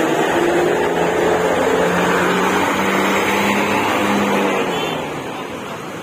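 Large coach bus passing close by, its engine running and tyres rolling in a loud, steady roar that eases off about five seconds in as the bus pulls away.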